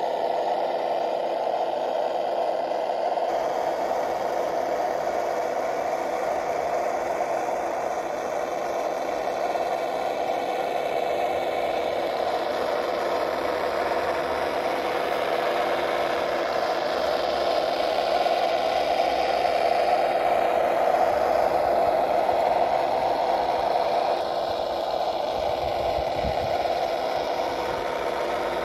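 1:10-scale RC GAZ-66 crawler truck driving off-road: its Das Mikro TBS Mini sound module plays a simulated truck engine through small onboard speakers, over the brushed electric motor and geared drivetrain. The engine sound runs steadily and grows louder for several seconds past the middle, then drops back.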